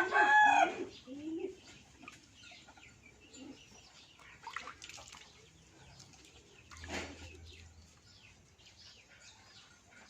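Backyard birds: a rooster crows loudly at the start over low, repeated cooing, then faint clucking and small chirps, with a brief rush of noise about seven seconds in.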